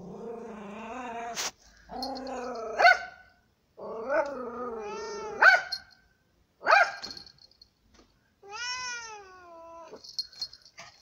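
Domestic cat giving long warning yowls and growls at a dog, five drawn-out calls that waver up and down in pitch, several ending in a sharp, loud spit.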